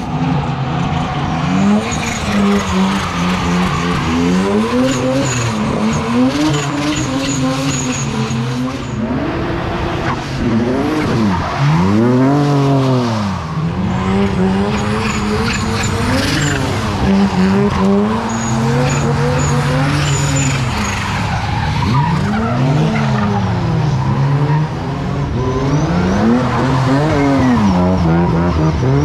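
Drift cars sliding past one after another, their engines revving up and dropping back again and again every second or two, with tyres skidding and squealing.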